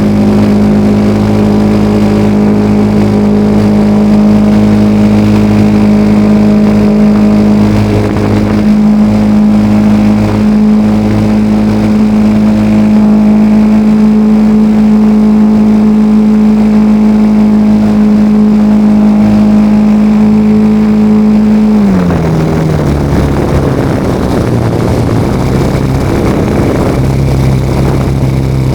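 Engine of a radio-controlled L-19 Bird Dog model plane, heard from on board, running steadily at high throttle, then throttled back about three-quarters of the way through, its pitch dropping and settling lower.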